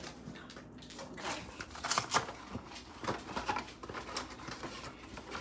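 Scattered light clicks and rustles of handling.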